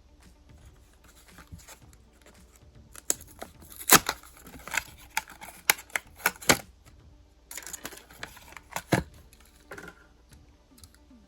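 Cardboard-and-plastic blister packaging of a diecast toy car being handled and torn open: irregular sharp clicks and crackles, busiest and loudest from about three to seven seconds in, with a stretch of tearing and a few loud snaps near eight to nine seconds in.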